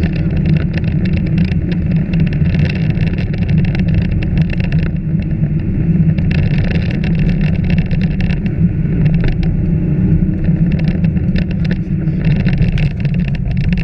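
Rally car engine running hard under load, heard from inside the cabin, with gravel and stones clattering against the underbody in many quick clicks as it drives over a dirt road.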